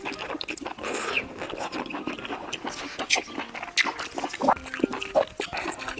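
Close-miked eating sounds as a mouthful of kung pao chicken is chewed: wet chewing and smacking with many short clicks.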